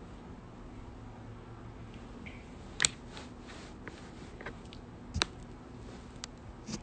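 A handful of short, sharp clicks and taps over a low steady room hum; the loudest comes about three seconds in and another just past five seconds.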